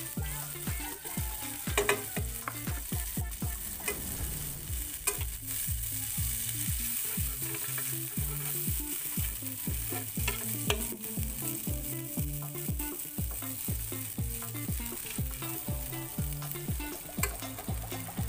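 Dairy Creme margarine sizzling as it melts in a hot nonstick frying pan while a utensil stirs and spreads it around, with a few sharp taps and scrapes against the pan.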